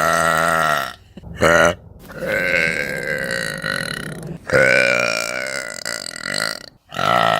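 A woman belching again and again: a short burp, a brief loud one, then two long drawn-out belches of about two seconds each, and another beginning near the end.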